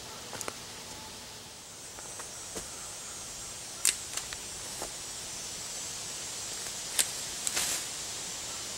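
A few sharp snaps and clicks over a steady hiss. The two loudest come about four and seven seconds in, with a quick cluster just after the second.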